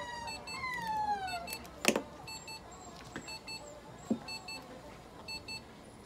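Veterinary therapy laser probe beeping in short double beeps at a steady, even interval. In the first second and a half there are long falling pitched tones. A sharp click about two seconds in is the loudest sound, and a softer knock follows about two seconds later.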